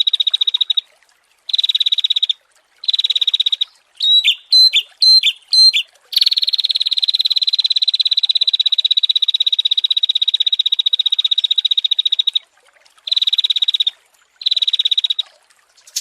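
Small songbird singing fast, buzzy trills on one pitch in bursts of a second or two, broken about four seconds in by a run of four or five loud, sharp notes, then one long trill of about six seconds.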